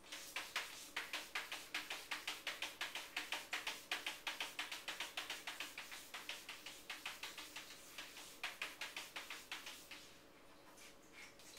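A cat's claws scratching rapidly and repeatedly at a refrigerator door, about five or six strokes a second, stopping about ten seconds in, with a few more scratches near the end.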